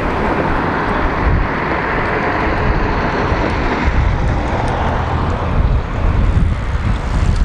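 A small white van driving past close by, its tyre and engine noise swelling and fading over the first few seconds, over a low rumble of wind on the microphone.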